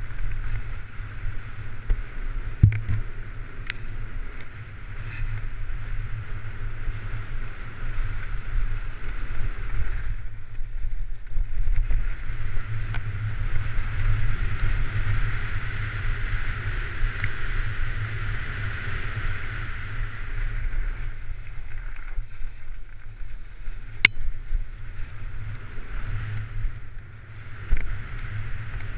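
Off-road motorcycle ridden fast along a bumpy forest trail: the engine runs and rises and falls with the throttle under heavy wind buffeting on the camera's microphone, with a few sharp knocks from the rough track.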